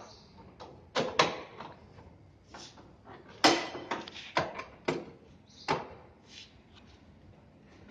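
A run of sharp clacks and knocks from the metal frame of a homemade motorized wheelchair as its bed-to-seat reclining mechanism is handled, about seven in all, the loudest near the middle.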